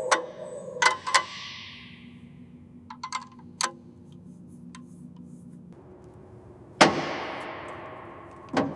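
A few sharp metallic clangs, irregularly spaced, each ringing away over a second or two; the two loudest come near the end.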